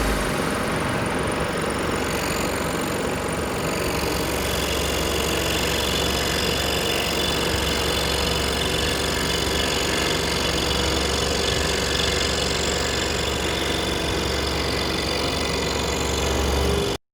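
Electric scroll saw running steadily with a low motor hum, cutting off abruptly near the end.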